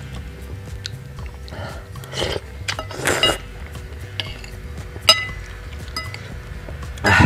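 Metal spoon and fork clinking and scraping against a glass bowl of noodle soup while the noodles are stirred and lifted, with one sharp ringing clink about five seconds in. Short noisy slurps come around two and three seconds in, and a louder one at the very end.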